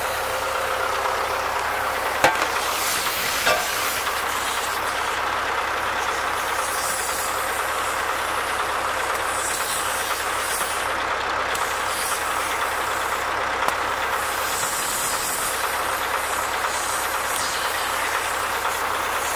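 Compressed air hissing from a hand blow gun at a mower's radiator in short, weak puffs, the air supply low on pressure, over a steady engine running in the background. Two short clicks come in the first few seconds.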